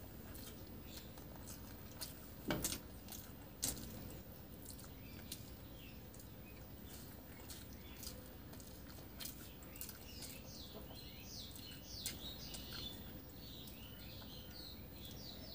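Soft mouth clicks and wet smacks of someone chewing rice and curry eaten by hand, with the squish of rice worked between the fingers. Two louder clicks come a few seconds in. Faint high chirps come in the last few seconds.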